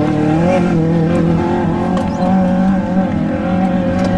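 Off-road desert race vehicle's engine running at high revs, its pitch held fairly steady with small rises and dips.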